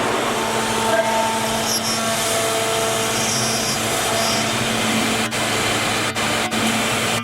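1530 CNC router running, a steady machine whine over a continuous rushing noise. The sound thins out briefly a few times in the second half.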